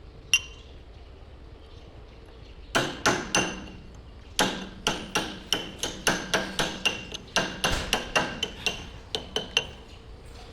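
A hammer striking metal, about twenty ringing blows at roughly two to three a second, with short pauses between runs. There is a single sharper strike just before them.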